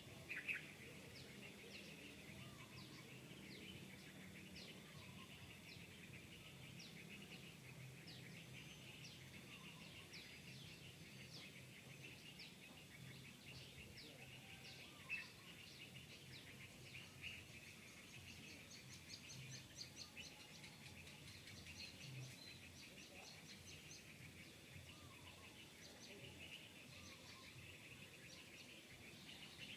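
Faint outdoor ambience of small birds chirping and twittering, with a short, rapid, high trill about two-thirds of the way through.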